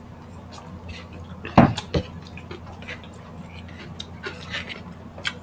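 A drinking glass set down on a wooden table: two sharp knocks about half a second apart, a second and a half in. Light clicks and taps of fingers and food on the table are scattered around them.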